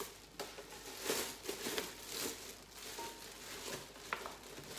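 Clear plastic wrapping bag crinkling in a string of short rustles as it is pulled off a stainless steel pot.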